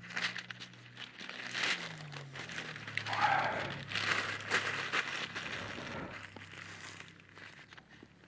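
Paper being crumpled and handled: a dense run of crinkles and crackles that starts suddenly, swells in the middle and dies away near the end.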